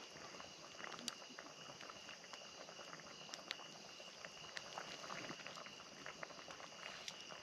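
Wood fire crackling faintly, with irregular sharp pops and snaps; a couple of louder pops about a second and three and a half seconds in.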